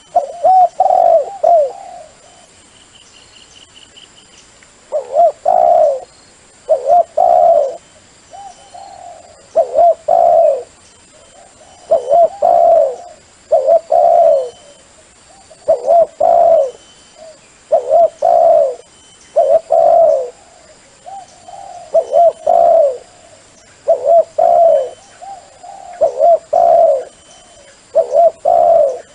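Spotted dove cooing loudly in repeated phrases of two or three notes, about one phrase every two seconds, after a pause of about three seconds following the first phrase. A faint steady high-pitched whine sits underneath.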